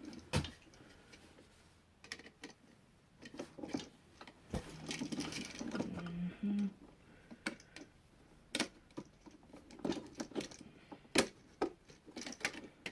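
Irregular small metallic clicks and clinks, a few of them sharp, from hand tools working a bent wire end into place around a wall outlet's terminal screw.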